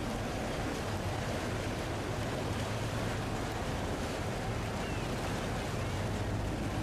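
A boat's engine running with a steady low hum, with the rush of water and wind noise over it.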